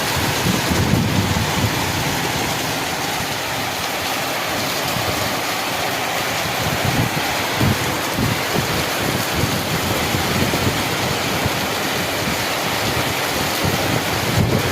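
Heavy rain falling in a steady, dense hiss, with uneven low rumbles throughout.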